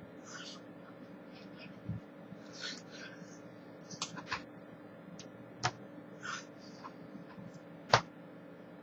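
Scattered taps and claps of hands striking each other while signing, with a few breathy mouth and breath noises. One sharp hand clap near the end is the loudest.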